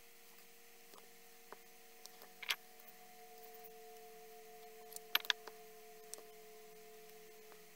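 Faint steady hum with a few small clicks and taps from handling craft tools, a pick-up pen and a plastic glue bottle, on the table: one click about two and a half seconds in and a quick cluster of clicks a little after five seconds.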